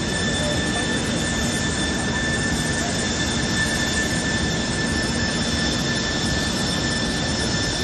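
Jet airliner engines running steadily: a loud rushing roar with a high, constant whine on top.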